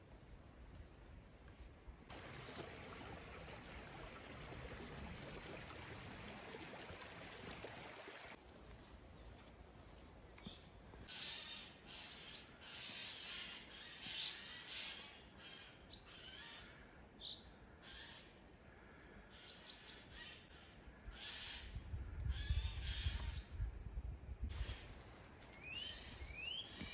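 Outdoor birdsong: many birds calling and chirping, with short rising chirps near the end. A steady rushing hiss runs through the first several seconds, and a gust of wind buffets the microphone a little past two-thirds of the way in.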